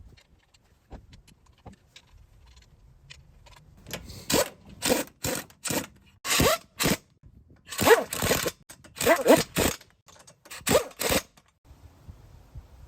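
Impact gun running lug nuts onto a wheel in about a dozen short bursts, starting about four seconds in and stopping near the end; the nuts are already tight, so each burst is brief.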